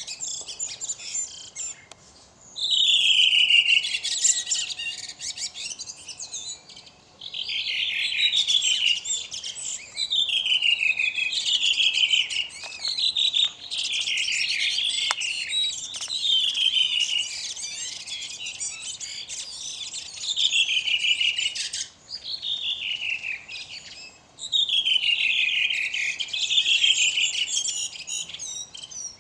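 Caged songbird singing a run of loud, repeated phrases, many of them falling sweeps of notes, with short pauses between.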